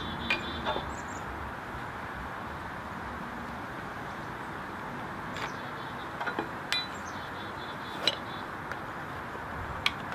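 Scattered light metallic clinks and taps, the kind made by tools and hardware being handled during carpentry on a ladder: two near the start, a quick cluster past the middle, then single ones near the end. Under them is a steady outdoor hiss.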